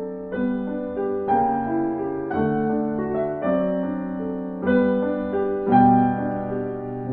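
Piano music playing alone: slow chords and notes, a new group struck about once a second, the strongest strikes about a second and a half in and again near the six-second mark.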